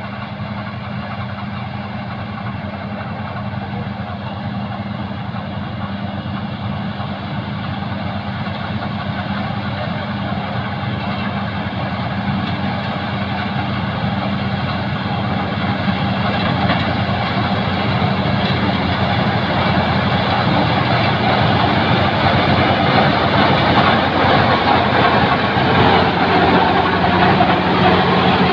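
Kartar 4000 combine harvester's diesel engine and threshing machinery running steadily as it harvests, growing gradually louder as the machine approaches and passes close by.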